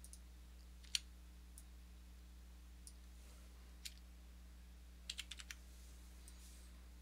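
Sparse, faint clicks of a computer mouse and keyboard over a low steady hum, the loudest single click about a second in and a quick run of about five clicks around five seconds in.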